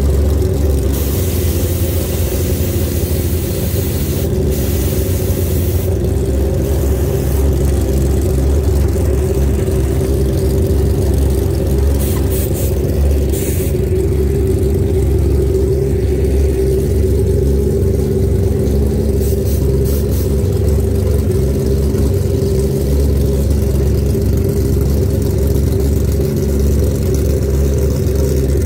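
An engine running steadily at one unchanging speed, with a deep, even hum, and a few brief hissing noises over it.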